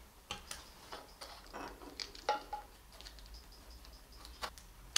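A few faint clicks and light handling noise as electrical wires are pushed into the terminal slots of a plastic lamp holder. The sharpest click comes a little before halfway.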